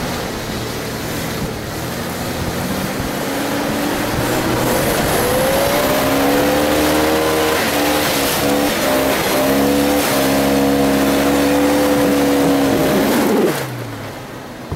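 Off-road 4x4 vehicle's engine revving: the pitch climbs over the first few seconds and holds high and steady. Near the end the revs fall away quickly and the sound drops off.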